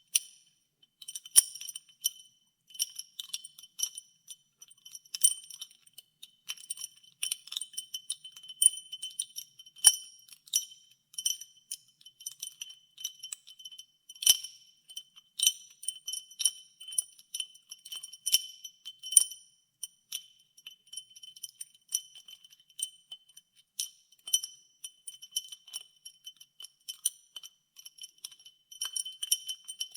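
Ice cubes clinking against a glass as ice water is stirred: irregular clinks, each leaving a short high glassy ring.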